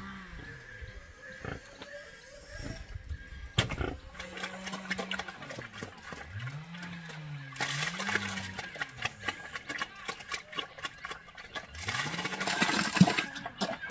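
Black pigs grunting at a feed trough in long, drawn-out rising-and-falling grunts, with a sharp knock about a quarter of the way in. Near the end, wet grainy feed is poured into the trough with a loud pouring, splattering sound.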